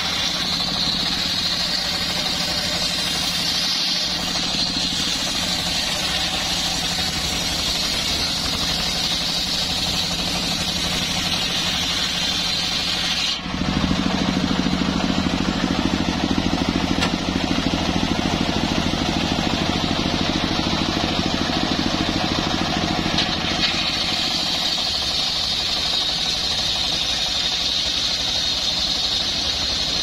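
Homemade circular sawmill running steadily, its blade ripping lengthwise through a log with a high sawing hiss over the machine drone. About halfway through the sound changes abruptly to a louder, lower drone of the saw running without cutting while the log is drawn back. The sawing hiss returns a few seconds before the end.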